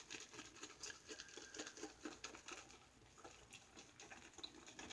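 Boar-bristle shaving brush being worked over a puck of shaving soap to load it: a faint, quick, irregular patter of bristles on the soap.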